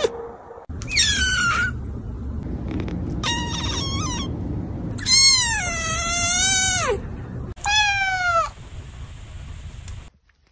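Kittens meowing: four separate high meows, the third drawn out for about two seconds and the loudest.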